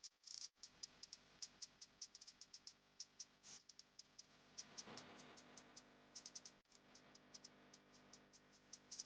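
Faint, irregular run of small sharp clicks, several a second.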